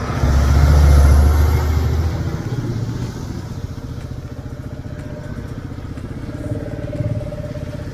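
Motorcycle engine running, louder for the first two seconds or so, then settling to a steady run.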